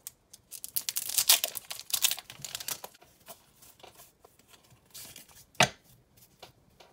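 Foil-lined plastic wrapper of a Pokémon card booster pack torn open by hand, crackling for the first three seconds or so. Then quieter crinkles and small clicks as the cards are handled, with one sharp tap about five and a half seconds in.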